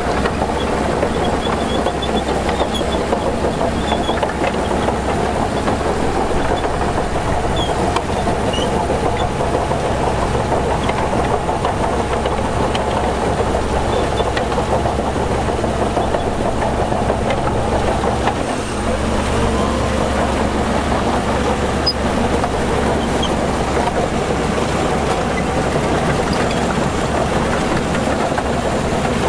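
Heavy diesel engine of earthmoving machinery running steadily, with a brief dip about two-thirds of the way through.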